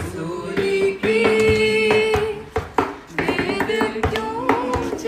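A voice singing a slow melody in long held notes, with a few scattered sharp taps.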